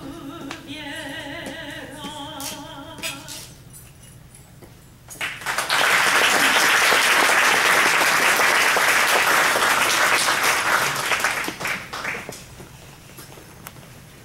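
A woman's singing voice holds a final note with vibrato, which ends about three and a half seconds in. About five seconds in, an audience breaks into applause that lasts about seven seconds and then dies away.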